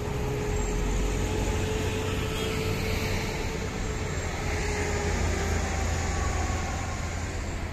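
Road traffic on a city boulevard: vehicles passing with a steady low rumble and tyre noise. A vehicle's hum holds one pitch and fades out about four seconds in.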